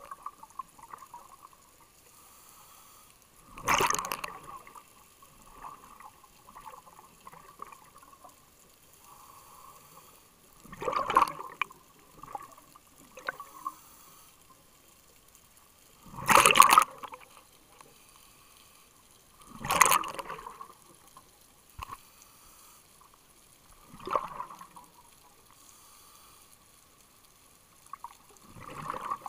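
Scuba diver's exhaled bubbles rushing out of the regulator underwater, six breaths a few seconds apart, each about a second long, with a faint steady tone between them.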